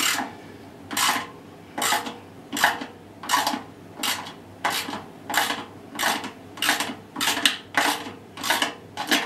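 Socket ratchet wrench working in short, even strokes, about three every two seconds, to undo the bolts holding the drum spider to a washing machine's stainless steel drum.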